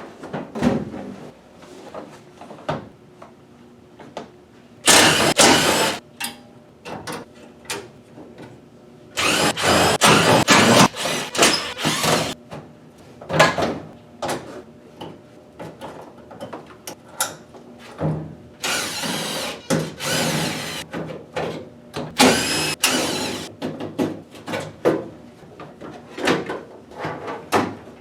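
A power driver runs in several bursts of a few seconds each, backing out screws and bolts, with short knocks and clanks of metal parts being handled in between.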